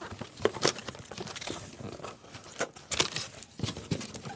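A cardboard shipping case being opened by hand: irregular rustling, scraping and light knocks of the cardboard flaps.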